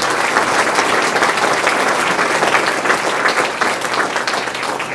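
Audience applauding: many hands clapping together in a dense, even patter that eases slightly near the end.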